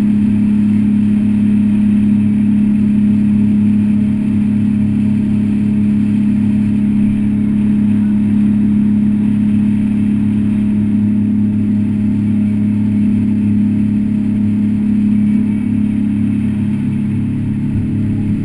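Aluminum jet boat's engine running at a steady cruise, a constant drone over the rushing hiss of the hull moving through water. It eases off slightly near the end.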